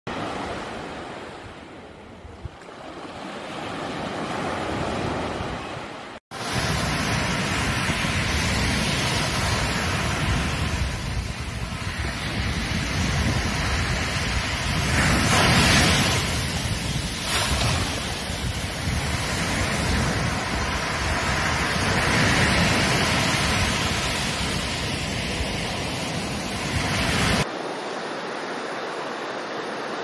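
Sea waves breaking and washing up a beach, a steady rushing surf that swells and ebbs. The recording cuts abruptly about six seconds in and again near the end, where the surf becomes quieter and thinner.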